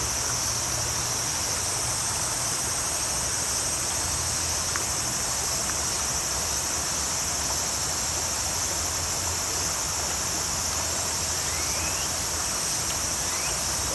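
A steady, high-pitched chorus of insects chirring over the rush of a shallow stream.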